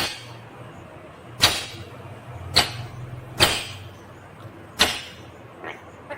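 Indian ringneck parakeet giving five short, harsh, loud screeches about a second apart.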